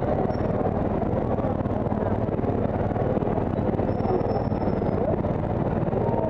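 Motorcycle engine running steadily at low revs, with the noise of the surrounding traffic mixed in.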